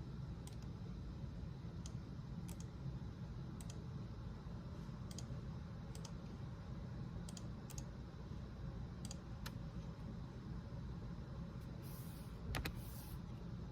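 Keys clicking one at a time, about a dozen scattered presses as a search is typed slowly, over a low steady hum. Near the end comes a brief louder rustle with a sharp click.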